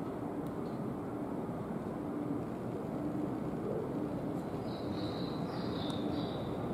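Steady low noise of a railway station with trains around, with a few faint high tones about five to six and a half seconds in.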